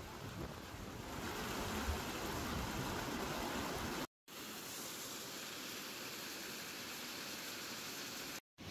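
Rushing water of a rocky mountain stream spilling over small cascades, a steady hiss, with wind rumbling on the microphone through the first four seconds. The sound drops out briefly twice, at about four seconds and near the end.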